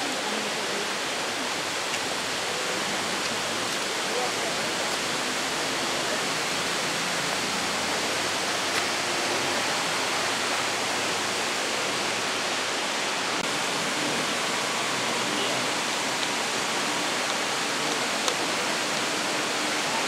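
Steady rushing of a waterfall and the river below it, an even hiss without breaks.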